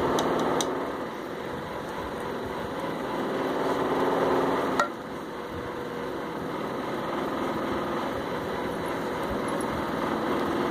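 A steady mechanical hum, like a motor running, with one sharp knock about five seconds in.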